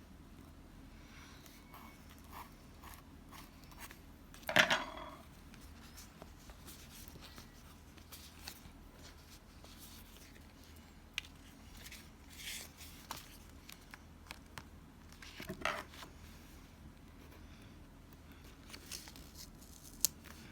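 Paper and stationery being handled while a planner page is laid out: soft rustles and light taps and clicks, with two louder brief rustling tears, about four and a half seconds in and again near the end, and a sharp click just before the end.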